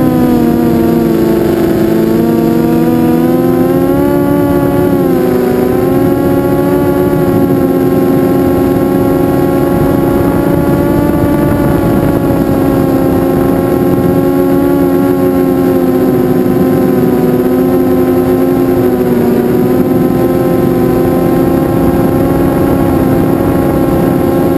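Electric motors and propellers of an FPV model aircraft, heard loud and close from its onboard camera: a steady buzzing whine that dips briefly in pitch a few times.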